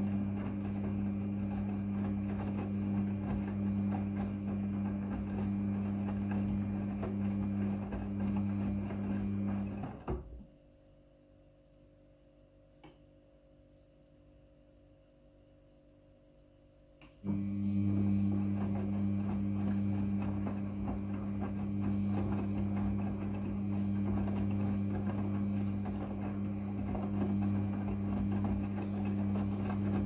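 Midea front-loading washing machine tumbling a load of wet towels, its drum motor humming steadily. About ten seconds in the drum stops and the machine goes quiet for about seven seconds, apart from one faint click, then the motor starts again and the drum turns on. This is the normal rest between drum turns in a wash cycle.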